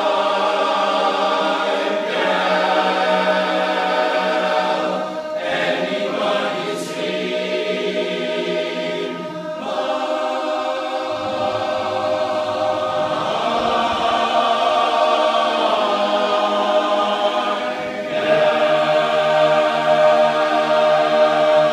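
Men's choir singing unaccompanied in close harmony, mostly on long held chords. The sound swells near the end into a loud sustained final chord.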